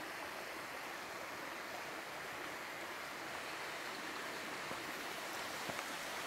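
Steady rush of a small mountain stream running strongly.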